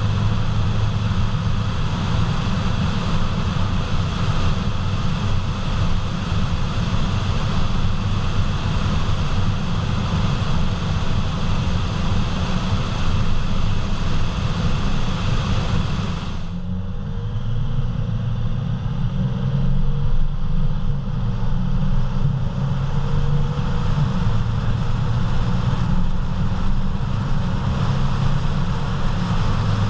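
Loud steady road roar inside the cabin of a 2014 Mercedes-Benz GL350 at speed, a low drone under a broad hiss, from a noise the owner is still trying to pin on the tires or a wheel bearing. About halfway through the higher hiss drops off sharply and the drone wavers before building back.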